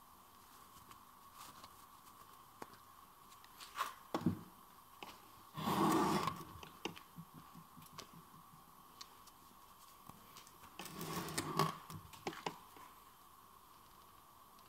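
Parts of a disassembled manual gearbox being handled on a bench: scattered metal clicks and clinks, with two short bursts of scraping and rubbing about six and eleven seconds in.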